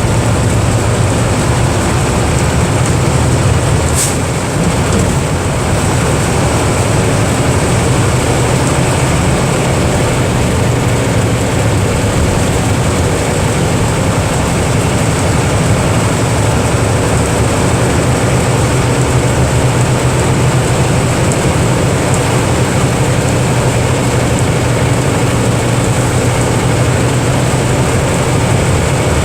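Diesel engine of a Mercedes-Benz OF 1318/51 bus running steadily, with one brief click about four seconds in.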